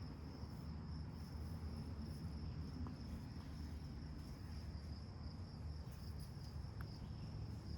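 Insects, most likely crickets, chirring in a steady high-pitched trill that never breaks, over a low rumble.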